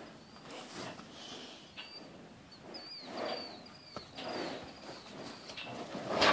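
Small birds chirping, a quick series of short, high, thin chirps, over faint shuffling and rustling of cattle moving in a straw-bedded pen, with a couple of faint knocks.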